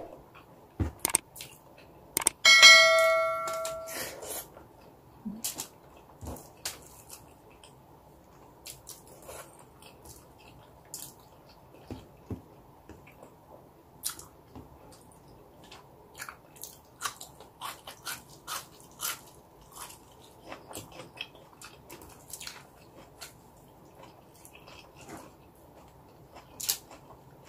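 Close-up eating sounds: chewing and lip smacks as garlic fried rice and boiled okra are eaten by hand, with small clicks of fingers on aluminium foil. A single bell-like ding, the loudest sound, rings out about two and a half seconds in and fades over a second and a half.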